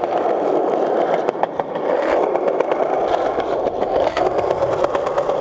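Skateboard wheels rolling over stone paving slabs: a steady rumble with many small irregular clicks as the wheels cross the joints between the slabs.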